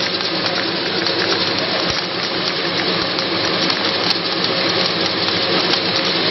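Palm nut cracking and shelling machine running: a steady electric-motor hum under a dense, continuous rattle of nuts and shell pieces moving over its sieve tray.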